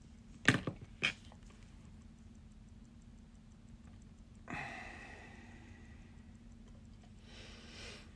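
Small metal watchmaker's tools clicking sharply twice on the watch movement and bench about half a second and a second in, then a brief clatter about four and a half seconds in that fades out, over a steady low hum.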